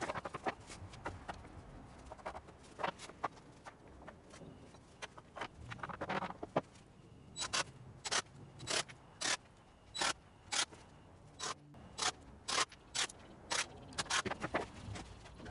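Hand work on pine boards at a workbench: boards and hand tools being knocked and set down, then a run of sharp clicks or taps, about two a second, from about halfway through.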